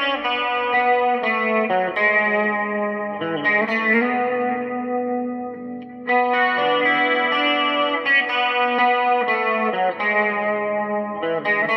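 Electric guitar played through an amp, the same short phrase heard twice, the second take starting about six seconds in. It is an A/B comparison of the amp sitting on the floor and the amp lifted on a block of reclaimed wood.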